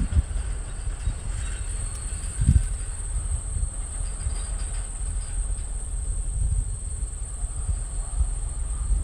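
Freight train rolling past with a low rumble and occasional thumps from the railcars. Crickets drone steadily and high-pitched throughout.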